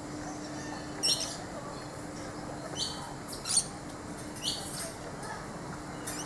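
A bird giving short, harsh, high-pitched calls, about five times, each a second or more apart, over a steady low hum.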